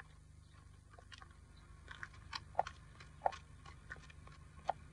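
Faint, irregular clicks and knocks, about half a dozen from around two seconds in, over a low steady hum.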